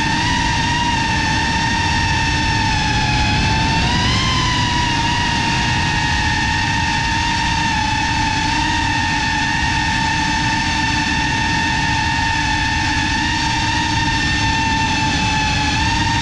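Motors and propellers of an FPV cinewhoop drone in flight: a steady high-pitched whine that rises briefly in pitch about four seconds in and then settles, over a low rushing noise.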